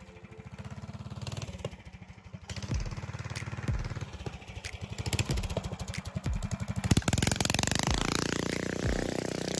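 Predator 301 cc single-cylinder engine on a mini trike running hard as the trike accelerates on dirt. It gets louder from about two and a half seconds in, and the pitch climbs over the last couple of seconds.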